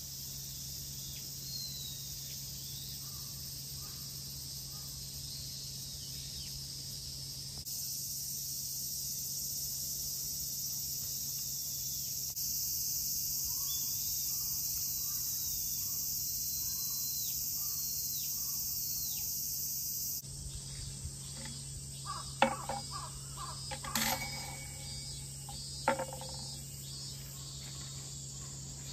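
Steady, high-pitched chorus of summer insects with a few short bird chirps over a low steady hum, changing level abruptly a few times. About two-thirds of the way in the chorus drops away and a handful of sharp clicks and knocks follow.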